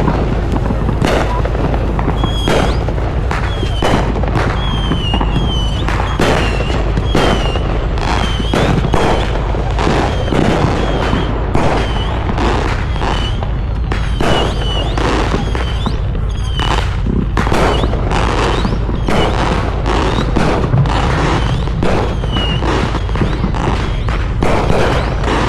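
A dense barrage of fireworks: bangs and booms follow one another without pause, overlapping one another. Short whistles that wobble and fall in pitch sound among them, about once a second for much of the time.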